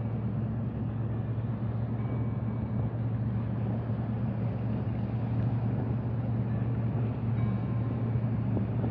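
A steady low engine hum that runs without change.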